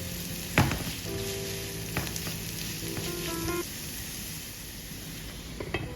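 Onion, a cinnamon stick and a bay leaf sizzling as they sauté in hot oil in a pan, with a couple of sharp knocks, under background music.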